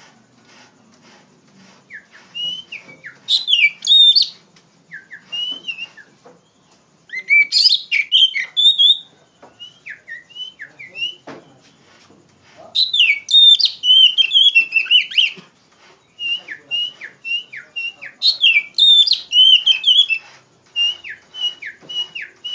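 Oriental magpie-robin (kacer) singing loudly in full song: bouts of varied whistled phrases with quick sliding and down-slurred notes, separated by short pauses.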